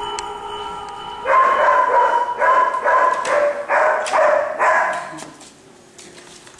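A dog barking over and over, about eight barks in roughly three and a half seconds, starting a little over a second in.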